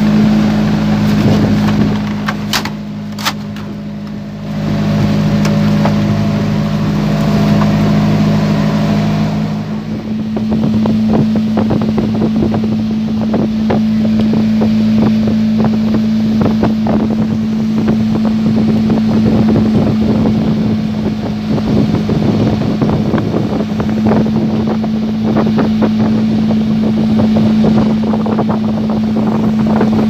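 Outboard engine of a small motorized outrigger boat running steadily under way, with wind rumbling on the microphone. The sound dips briefly with a couple of sharp clicks about two to four seconds in.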